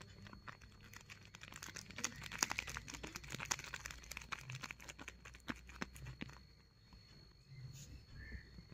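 Homemade paper squishy wrapped in clear tape being squeezed and handled, its paper and tape crinkling and crackling. The crackling starts about a second in, is densest between two and four seconds in, and dies away after about six seconds.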